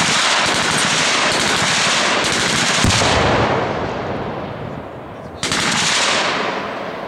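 Machine-gun fire: long automatic bursts that blend into a continuous rattle, with a heavier boom about three seconds in, fading out by about four and a half seconds. A second burst starts sharply about five and a half seconds in and tails off.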